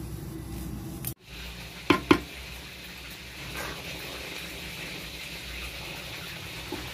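Pot of nearly cooked rice sizzling steadily as it is stirred, with two sharp knocks about two seconds in.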